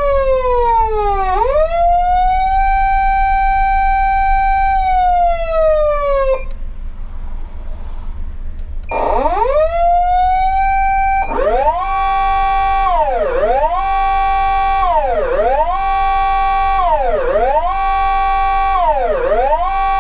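Electronic siren tones from a SAP-520FB siren amplifier in fire-service mode. A wail falls, rises to a held high pitch, then falls and cuts off about six seconds in. After a short pause, another wail rises and holds, then about eleven seconds in it switches to a faster siren that rises and falls about every two seconds, over a steady low hum.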